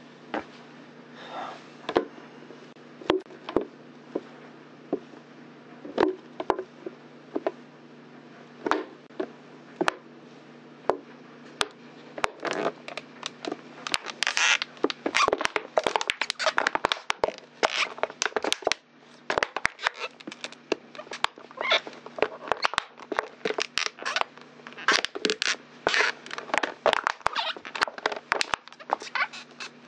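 Heavy work boots stepping on and crushing a clear plastic bottle: crackling, crinkling and squeaking plastic. Scattered single cracks at first, then dense crackling and squeaks from about twelve seconds in as the bottle is flattened.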